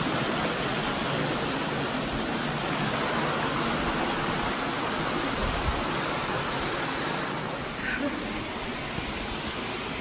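Steady rushing of a stream spilling over small rock cascades and a waterfall, growing a little fainter near the end.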